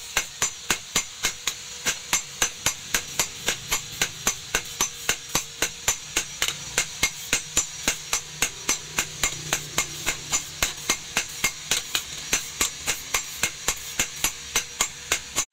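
Hand hammer striking a red-hot meat cleaver blade on a steel post anvil in a steady rhythm of about three blows a second, each with a short metallic ring: the heated blade being forged.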